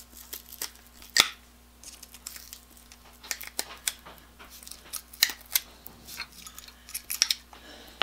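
Pliers breaking away the molded plastic covering of a power cord's powdered-iron ferrite choke: scattered sharp clicks and cracks, the loudest about a second in.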